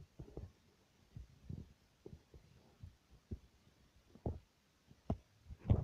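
Irregular soft low thumps and knocks from fingers handling a small plastic toy figure and a tiny homemade toy phone close to the microphone, with a sharper, louder knock near the end.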